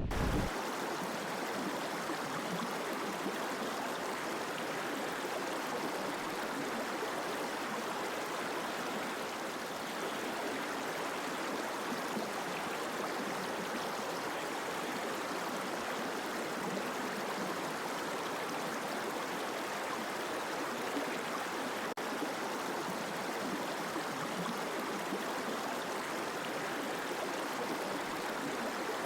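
Steady rushing of the Red-a-Ven Brook's water over rocks, an even unbroken hiss with no change in level.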